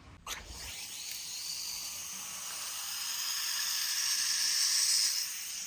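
Tap water running steadily into a bowl or container, starting after a click and growing a little louder and brighter as it fills, then easing off near the end.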